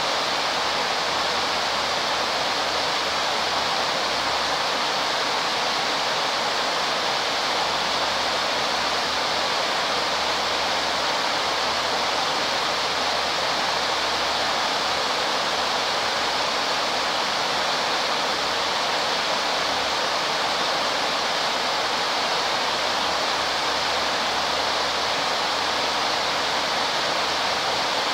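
River water pouring over a weir: a steady, loud rush of white water that does not change.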